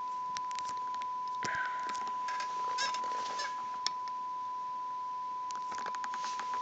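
A loudspeaker plays a steady pure test tone that stays at one pitch throughout, serving as the source for a direction-detection test. Scattered faint clicks and brief rustles sound over it.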